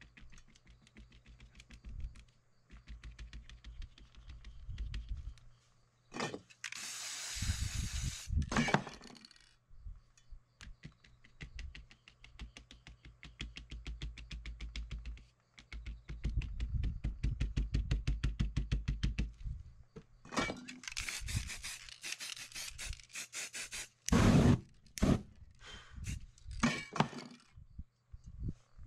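A crumpled cloth dabbed quickly and repeatedly against wet spray paint on a board, with fingertips rubbing the surface, giving fast runs of soft scraping taps. Two louder hissing stretches come in, a few seconds in and again about two-thirds of the way through.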